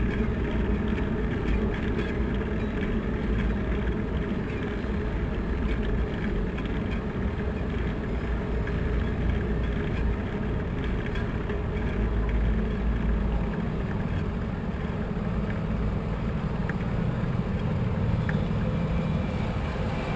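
Steady low rumble of tyre and wind noise from a bicycle rolling along a city street, picked up by a camera mounted on the bike.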